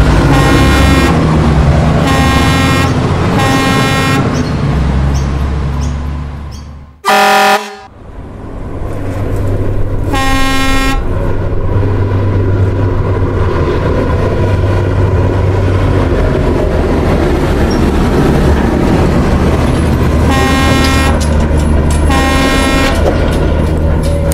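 Heavy truck engine running with a low, steady rumble, punctuated by honks of a truck horn: three in the first few seconds, one around ten seconds in, and two more near the end. Around seven seconds in the engine fades away, a short loud tone sounds, and the engine then comes back up.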